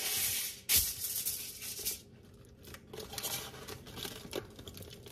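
Aluminum foil crinkling and rustling as it is handled and wrapped around a foil-covered meatloaf. It is loud and dense for about the first two seconds, then drops to fainter, scattered crinkles.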